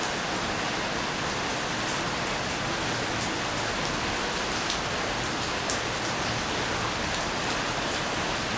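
Steady rain falling, an even hiss with a few sharper drop taps standing out here and there.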